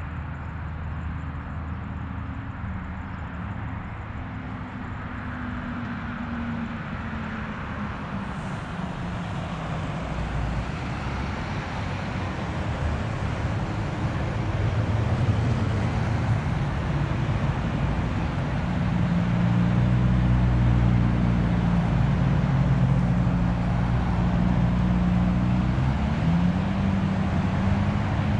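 Engines and tyres of a line of Jeep Wranglers driving through a roundabout, growing louder as they come close. Near the end one engine's pitch rises as it accelerates away.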